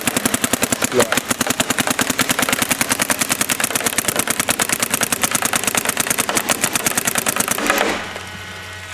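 Planet Eclipse LV1 paintball marker firing a continuous rapid string of shots, about 14 a second, in a rate-of-fire run. It stops about 8 seconds in.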